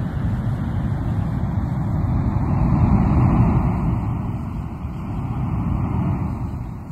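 Recorded ocean surf: a wave surges up to a peak about three seconds in, a smaller one follows, and it falls away near the end.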